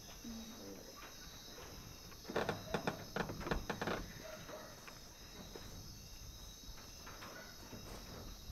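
Steady night chorus of crickets trilling. A short run of scuffs and knocks comes about two seconds in and lasts a couple of seconds.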